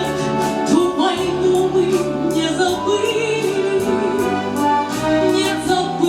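A woman singing long held notes with vibrato over an instrumental accompaniment, with steady bass notes that change every second or two.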